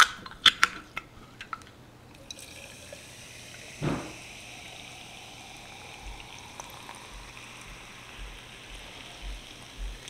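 A few sharp glass clinks, then sparkling water poured into a glass jar over frozen passion fruit cubes, running and fizzing steadily as the foam rises.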